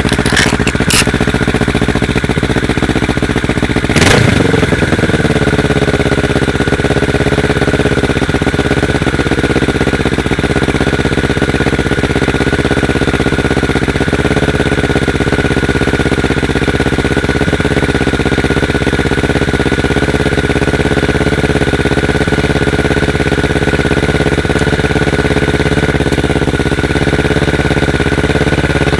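Kawasaki Ninja 650R parallel-twin engine idling loudly through a replica Akrapovic slip-on exhaust just after a cold start. There is a brief sharp burst about four seconds in, after which the idle settles a little lower and runs steadily.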